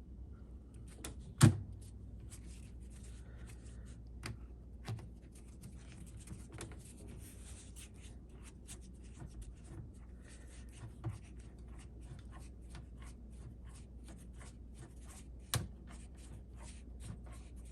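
Gedore silent-gear ratcheting screwdriver being turned and handled: faint light ticks and scraping, with no ratchet clicking to be heard. A sharp knock comes about a second and a half in, and a smaller one near the end.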